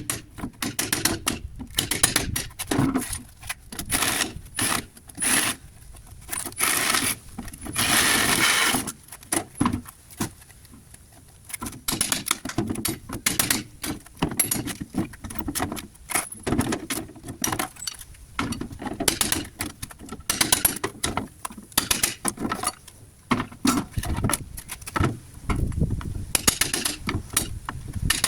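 Irregular knocks, wooden clatter and metallic clinks of hammer and crowbar work on a wooden pallet as the boards are struck and pried loose, with a short burst of harsher noise, about a second long, some eight seconds in.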